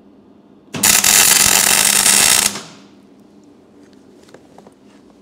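MIG welder arc crackling steadily on the steel door hinge plate for nearly two seconds, then cutting off as a single short weld ends, followed by a few faint ticks.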